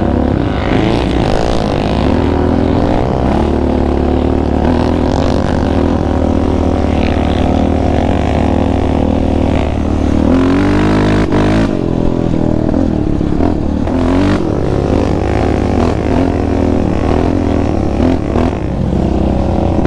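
Single-cylinder engine of a 2019 Yamaha Raptor 700R sport quad with an aftermarket Monster exhaust, heard from on board while riding. The engine note rises and falls with the throttle.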